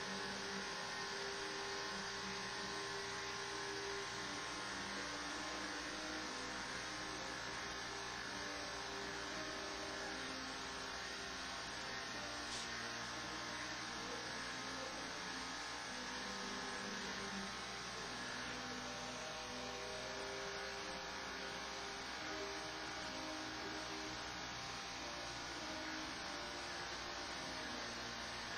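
Corded electric hair clippers running with a steady buzzing hum as they cut hair short, over a constant hiss.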